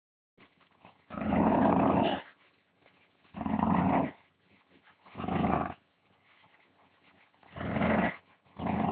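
A dog growling in five separate rumbling growls, each lasting about half a second to a second, with short pauses between them.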